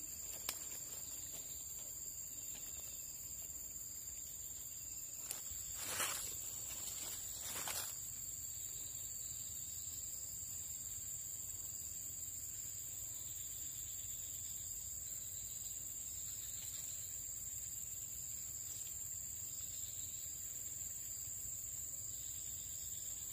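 Steady high-pitched drone of insects chirring outdoors, unbroken throughout, with a couple of brief rustles about six and seven and a half seconds in.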